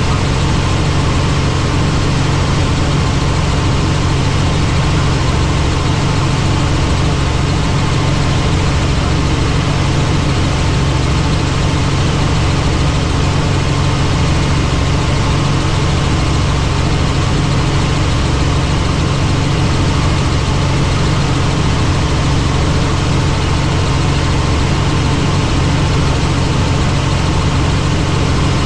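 Helicopter in flight: a loud, steady drone of engine and rotor noise, heaviest in the low end, with no change in pitch or level.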